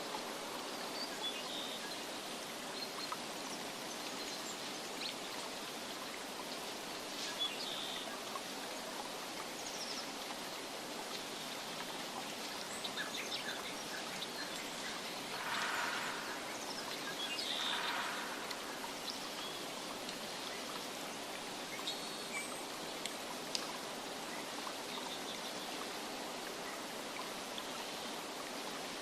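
Steady rushing water ambience of a stream and rain, with faint short bird chirps here and there and two brief louder surges of water noise about halfway through.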